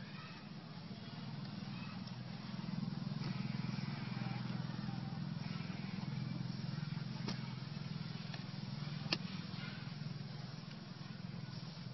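A motor engine running steadily in the background, growing louder about two and a half seconds in and then easing off a little, with two sharp clicks in the second half.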